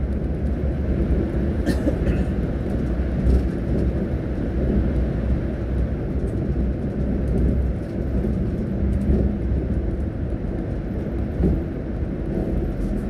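Steady low engine and road rumble heard from inside a moving coach bus, with a few brief light rattles.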